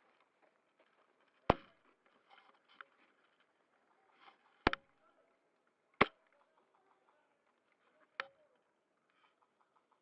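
Airsoft DMR rifle firing four single shots a few seconds apart, each a sharp crack; the last is quieter.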